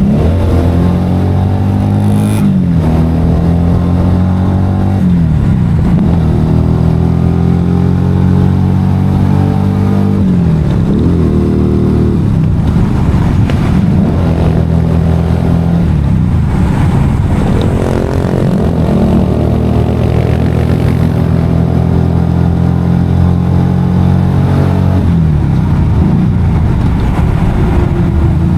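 Motorcycle engine running under way. Its pitch climbs as the revs build, then drops back sharply several times, as at gear changes or on easing off the throttle.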